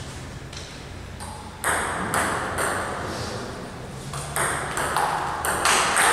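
Table tennis rally: a ball struck back and forth, sharp clicks of ball on paddle and table about every half second, with a short ringing echo after each. The hits begin about a second and a half in and get louder toward the end.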